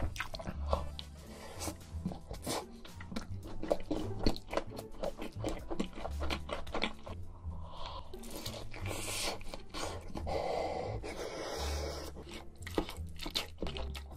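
Close-miked eating: crunchy bites and wet chewing of food, many sharp crunches in quick succession, over background music with low bass notes.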